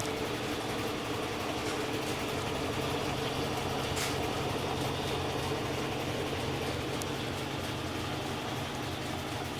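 GE EcoPerformance 15 kg washing machine running steadily in its spin cycle: an even motor and drum hum with no break.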